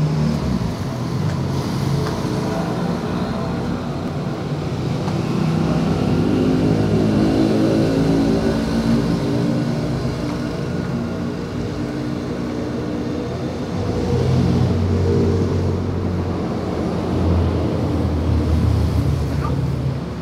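A motor vehicle's engine running steadily, its pitch shifting slightly now and then, with a deeper, louder stretch about two-thirds of the way through.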